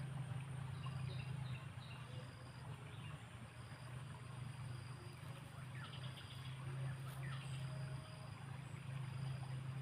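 A steady low engine hum runs throughout, with birds chirping: short high chirps repeat, and two quick falling calls come about six and seven seconds in.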